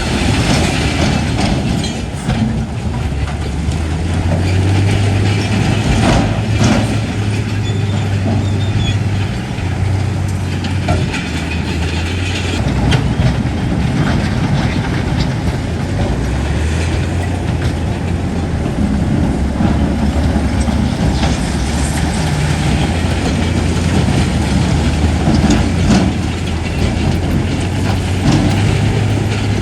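Bulldozer's heavy diesel engine running under load, its deep note shifting up and down every few seconds, with scattered metallic clanks and knocks from the tracks and rock.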